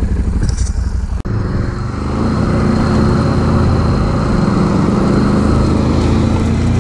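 ATV engine running steadily while riding along a trail, with a short break about a second in, then a little louder and holding steady.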